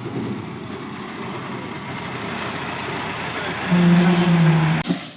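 Farm machinery engine running steadily. Near the end a loud held tone lasts about a second, falling slightly, then the sound cuts off abruptly.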